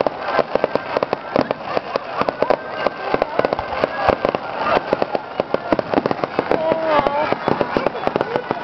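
Fireworks going off in quick succession: many sharp bangs and crackles that overlap throughout.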